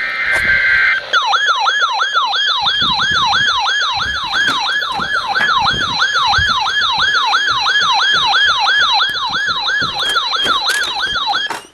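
The end of a NOAA Weather Radio SAME data burst (a buzzy data screech) for about a second, then an electronic siren alert tone for a flood warning: quick falling sweeps repeated about three times a second. The sweeps cut off just before the end.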